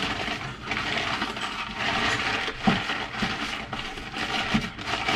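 Packing paper rustling and crinkling as items are wrapped by hand, with a few short knocks of objects set down on the counter.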